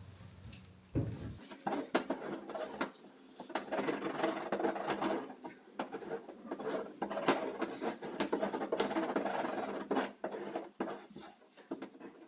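Hand roller pressing Kilmat foil-faced butyl sound-deadening mat onto a van's bare sheet-metal panel: an irregular run of crackling, crinkling and scraping that starts about a second in and goes on for about ten seconds.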